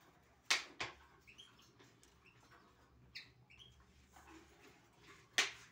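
Three-week-old European goldfinch chicks giving short squeaky begging chirps, with three short harsh bursts, the loudest near the end.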